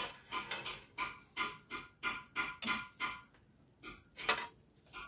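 Metal spatula scraping and knocking against a large metal wok holding cooking oil, in short strokes about three a second, each leaving the wok ringing briefly. The strokes pause for about half a second a little past the middle, then come again more slowly.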